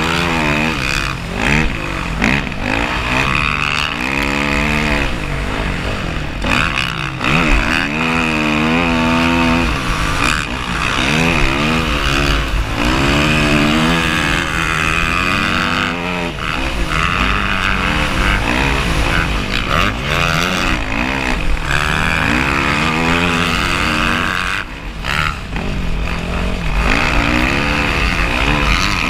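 Dirt bike engine being ridden hard, its pitch climbing and dropping again and again as the throttle is worked, with gusty wind noise on the microphone.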